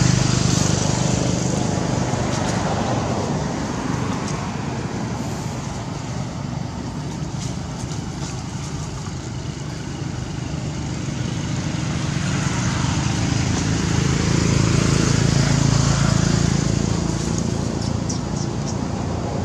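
Road traffic: a motor vehicle's engine drone swells near the start, fades, and swells again about three-quarters of the way through, over a steady background hiss.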